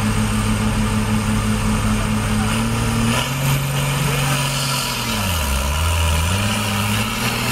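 Ford 7840 tractor's six-cylinder diesel engine running steadily at the start line of a tractor pull. Its speed rises a little about three seconds in, then drops sharply for about a second and picks back up.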